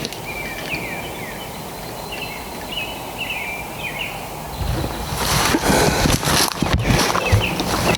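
Songbirds chirping with short, repeated down-slurred notes over low outdoor background noise. About halfway through, loud rustling and knocking begins and covers the birds.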